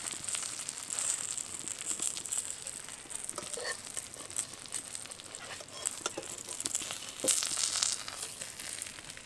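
Banana-leaf-wrapped paturi parcels sizzling and crackling in a little hot mustard oil in a kadai, with a few light knocks.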